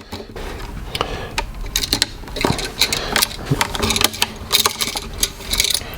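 Irregular small clicks, taps and scrapes of copper wires being handled and fitted to a wall outlet's terminals, with no steady rhythm.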